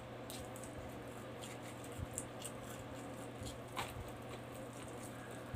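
Close-up eating sounds: a person chewing with quiet wet mouth clicks and smacks while fingers pick at rice and pork on a banana leaf, with a few soft knocks and clicks, the clearest about two seconds in and just before four seconds. A faint steady hum runs underneath.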